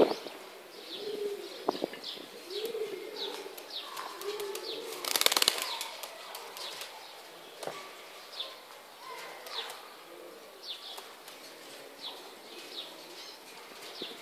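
Buchón Gaditano pouter pigeons cooing, in low arched calls repeated every second or two, with a brief burst of wing flapping about five seconds in. Short high chirps of small birds repeat throughout.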